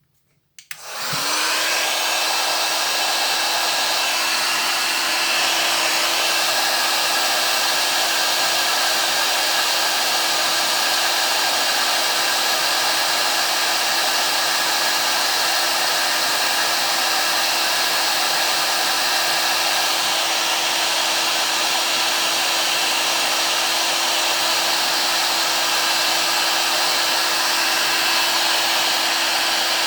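A Parkside PHLG 2000 D3 hot air gun switches on with a click about half a second in. Its fan motor spins up with a rising whine within a second, then runs steadily: a constant hum under a loud rush of blown air.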